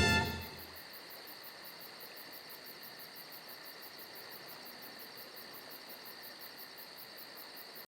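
Faint, steady insect chirring in a cricket-like pulse repeating about six times a second. The last note of a music jingle fades out at the start.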